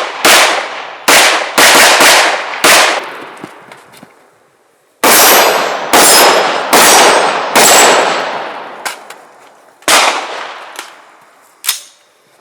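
Handgun shots at a steel spinner target, with the steel ringing after hits: a quick string of about six shots, a pause of about two seconds, then about four more roughly a second apart, and a few fainter shots or hits near the end.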